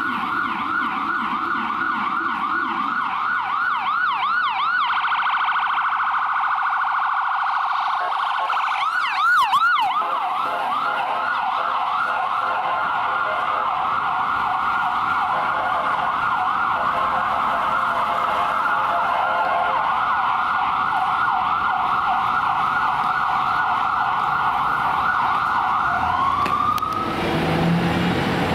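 Hatzolah ambulance's electronic siren on a fast yelp, with short bursts of a faster, shriller sweep about four and nine seconds in. A lower steady tone sounds under it for the first few seconds, and the siren winds down near the end.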